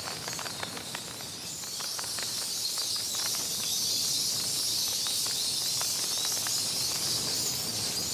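Colony of cave-roosting bats, a dense high-pitched chittering with many short clicks scattered through it, growing louder about two seconds in.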